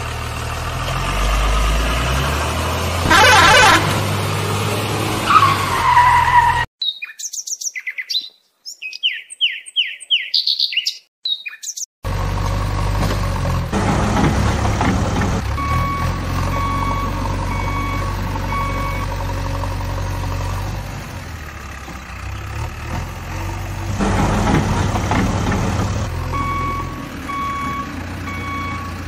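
Truck engine running, with a reversing alarm beeping steadily in two runs, one after about 15 seconds and one near the end. For several seconds before that, the engine stops and only short high chirps are heard.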